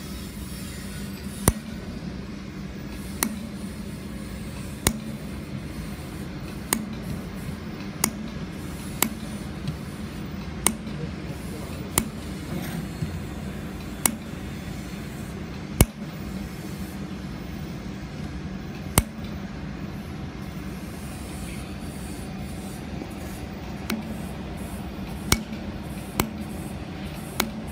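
Handheld laser welder firing short spot-weld shots on steel plate, each a sharp crack, about fifteen of them spaced a second or two apart, over a steady low hum.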